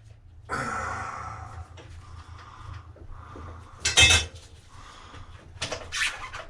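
Metal hand tools clinking and scraping against the motorcycle's exhaust bolts and frame, with one loud metallic clank about four seconds in.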